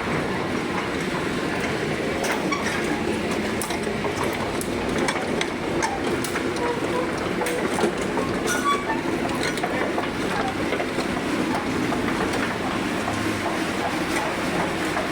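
Backhoe running steadily, a constant heavy mechanical din with scattered metallic clicks and clanks.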